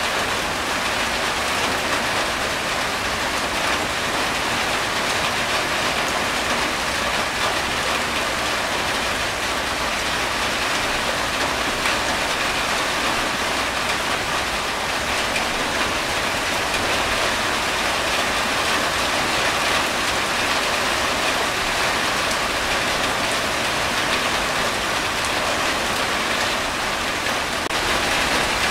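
Steady rain falling on a corrugated tin roof, with water streaming off the roof's edge: an even, unbroken hiss.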